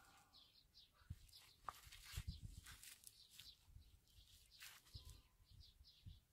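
Near silence, with a small bird's faint high chirps repeating a few times a second. Soft clicks and low rubbing come from rusty pliers being handled in rubber gloves, a little louder about two seconds in.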